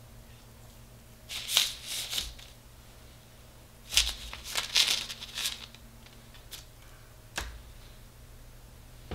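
Cookie dough being scraped off a metal spoon with a wooden spatula and dropped onto a parchment-lined baking tray: two bursts of scraping and paper rustle, then a single click.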